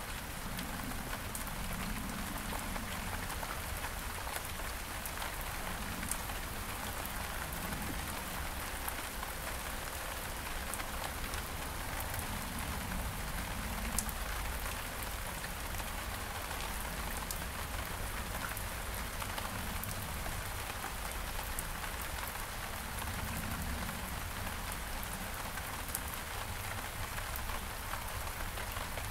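Steady rain falling on several kinds of surfaces, with countless individual drops ticking sharply through the hiss and a few slightly louder drop hits.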